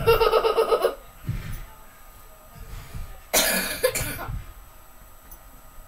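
A dog's whine rises in pitch and runs into a wavering, pulsing vocal sound that stops about a second in. A second or two later comes a single harsh cough lasting about a second.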